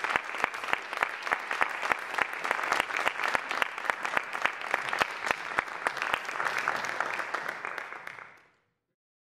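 Audience applauding, with single sharp claps standing out from the clapping. It fades out about eight seconds in.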